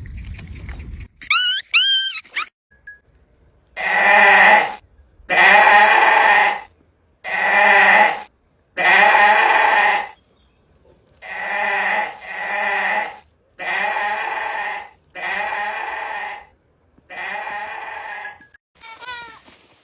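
Bleating livestock: nine long bleats in a row, each about a second or more, separated by short pauses. Before them come two short, high warbling calls.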